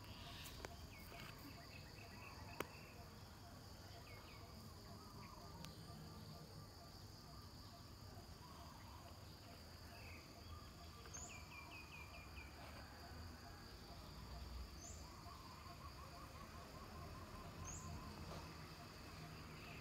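Faint insect sounds: a steady high buzz with short chirping trills every few seconds, and one sharp click a few seconds in.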